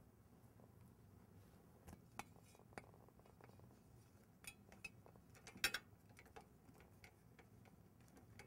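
Faint, scattered light clicks and taps of a replacement pet door flap being slid into the pet door frame's channel, the loudest a pair of clicks a little past halfway.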